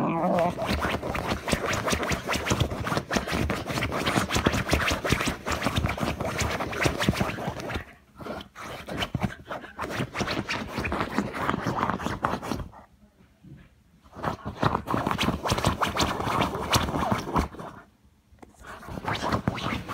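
A small dog scratching and rubbing against the phone right at the microphone as it plays rough, in several long bursts with short gaps.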